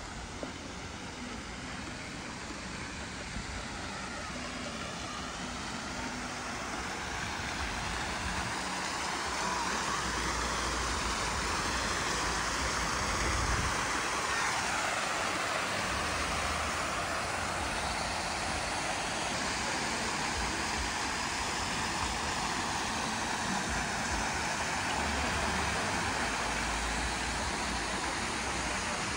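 A steady rushing noise that grows louder over the first ten seconds or so, then holds level.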